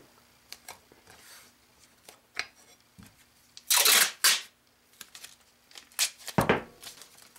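Masking tape being pulled off the roll in quick rasping rips: two close together about four seconds in, and another about six seconds in with a dull knock. Small rustles and clicks from handling the tape come between.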